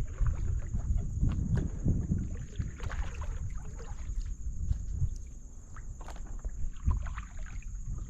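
Kayak on the water: a low rumble of water and wind around the hull, with scattered small knocks and clicks from the boat and gear.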